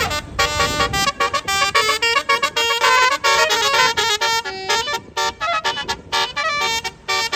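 A tour bus's basuri telolet horn playing a fast tune: a rapid run of short horn notes jumping between pitches, with a brief break about five seconds in.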